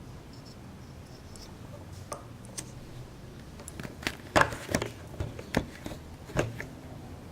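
Light clicks and knocks of small parts and tools being handled, scattered and irregular, loudest and most frequent in the second half, over a low steady background.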